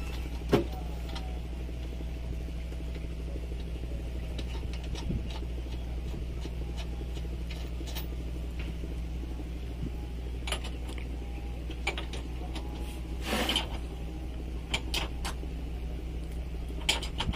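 A steady low engine hum, with scattered short clicks and knocks over it and a louder cluster of knocks about thirteen seconds in.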